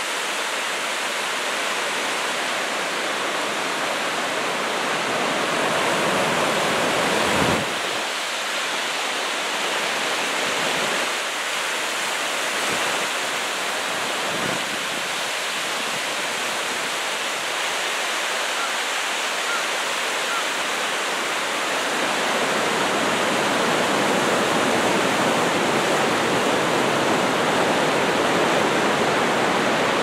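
Small surf breaking and washing up on a sandy beach: a steady rushing wash that swells and ebbs, with one stronger surge about seven seconds in and a little louder in the last third.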